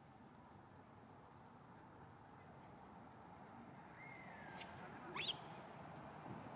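Short high-pitched animal calls about four seconds in: a whistle that falls slightly in pitch, then two quick sharp chirps sweeping upward, heard over faint low background noise.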